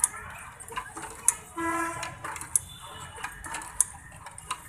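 Outdoor-gym exercise machine clicking as it swings, one sharp knock about every second and a quarter. A brief steady tone with overtones sounds about a second and a half in.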